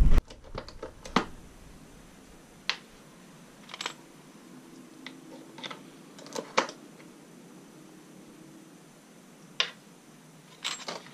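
Scattered sharp clicks and light knocks, about a dozen at irregular intervals, with a louder thump right at the start: a powder measure being worked and brass .45 cases handled while charging cases with powder.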